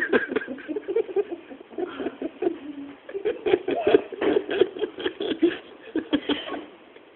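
People stifling laughter: short pitched voice bursts in quick succession with no words.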